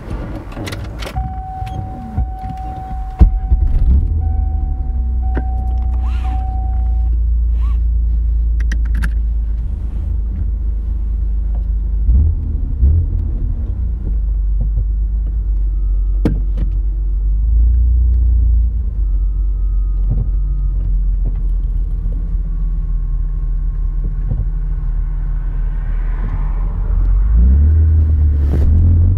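Car exhaust through a 2.5-inch Trubendz catback with a Dynomax Super Turbo muffler, heard at the tailpipe: the engine starts about three seconds in, then idles with a steady low rumble.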